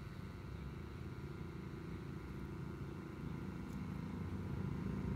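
An engine running with a low, rapid pulsing, growing louder over the last couple of seconds.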